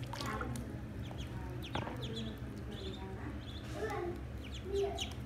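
Ducklings peeping: many short, high, downward-sliding peeps, some overlapping, over a steady low hum.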